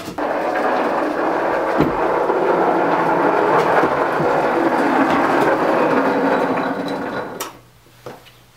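Maxitrak Alice Quarry Hunslet miniature locomotive running along the steel rails of the track, a steady rolling noise that starts suddenly and dies away about seven and a half seconds in.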